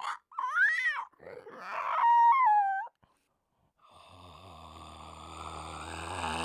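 A man's voice performing creature sound effects. First comes a short rising-and-falling whining cry, then a rough growl that breaks into a high squeal stepping in pitch. After a pause of about a second, a long, low, guttural groan grows steadily louder.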